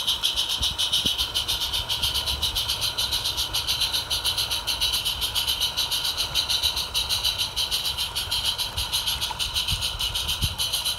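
Roundhouse Davenport live-steam model locomotive running, its exhaust giving a fast, even chuff of about seven beats a second over a steady hiss.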